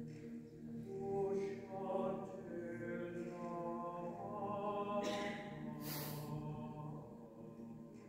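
Mixed-voice high school chamber choir singing a cappella, holding sustained chords that move from one to the next, with two brief hissing sung consonants about five and six seconds in.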